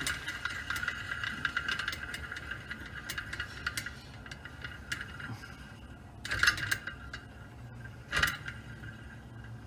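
Small metal clinks and scrapes as a thread tool is run down an all-thread rod onto spacers and a washer stacked on a Can-Am X3 secondary clutch. Two louder knocks come about six and eight seconds in.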